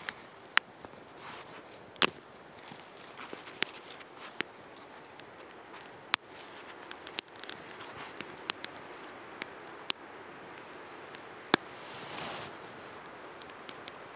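Wood campfire crackling: sharp, irregular pops over a soft steady hiss, with a brief swell of rushing noise near the end.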